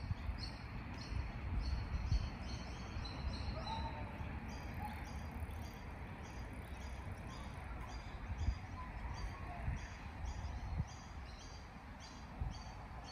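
Outdoor ambience: a high chirp repeating evenly about three times a second, with a few fainter, lower chirps, over a low rumble of wind on the microphone.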